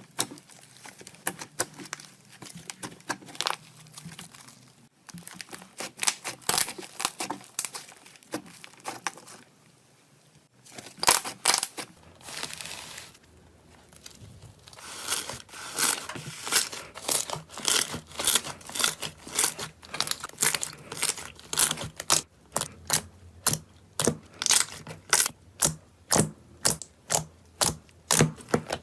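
Slime being pressed and squished by hand, giving a run of sharp crackling pops and squelches. In the second half the pops come regularly, about twice a second.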